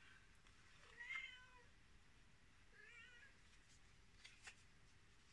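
Domestic cat meowing twice, faintly: two short calls, each rising then falling in pitch, about two seconds apart.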